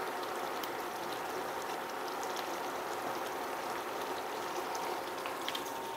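Pan of browned ground beef sizzling on the hob: a steady hiss with faint small crackles as tomato soup is scraped into it from a bowl.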